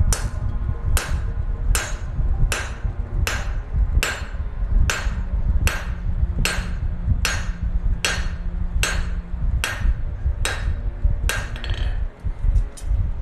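Hand hammer striking hot coil-spring steel on an anvil, drawing it flat for a blade: steady blows about every 0.8 s, each with a bright ring, stopping shortly before the end, followed by a few light taps.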